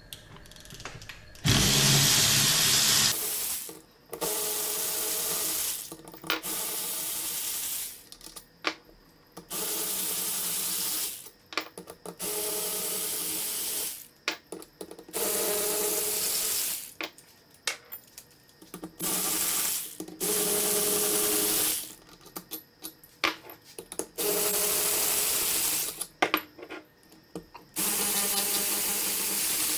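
Cordless power tool run in about ten bursts of one to two seconds each, the first the loudest, undoing the cover bolts of a Holden VE SS limited-slip rear differential one by one.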